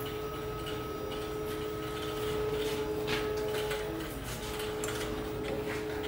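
Steady machinery hum made of several fixed tones, with a few faint clicks about every second and a half.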